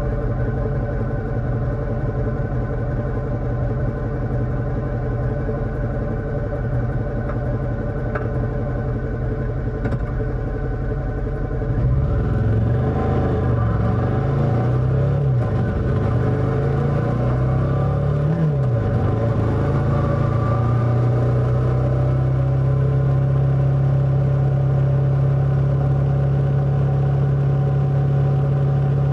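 Motorcycle engine running at a steady pitch. About twelve seconds in it gets a little louder and the pitch swings up and down several times for several seconds, as with revving and gear changes, then settles back into a steady note.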